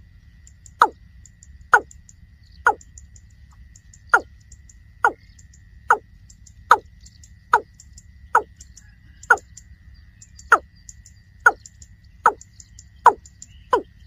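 Watercock calling: one short, deep note falling in pitch, repeated about once a second, some fifteen times.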